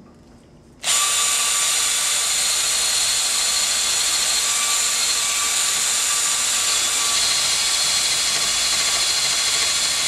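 Ryobi drill starting about a second in and then running steadily at about 300 RPM: a constant whirring hiss as its 2-inch wire brush spins the rim of a ceiling-fan permanent magnet alternator at roughly 100 RPM.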